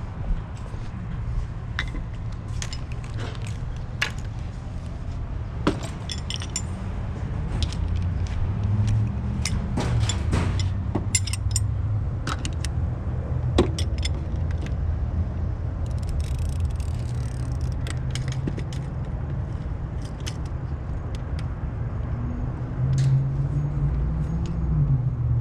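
Scattered metallic clinks and taps of hand tools and sockets being handled, at irregular intervals, over a steady low hum.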